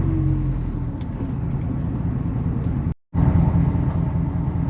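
Steady low rumble of a vehicle driving, heard from inside the cab. It drops out completely for a moment about three seconds in.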